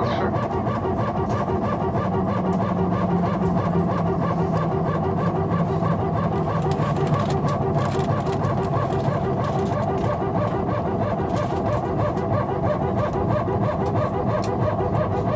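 Steady jet-engine and air-conditioning hum inside an Airbus A319 cabin, heard from a window seat over the wing while the aircraft stands near the stand. A low hum in it sinks slightly in pitch a few seconds in.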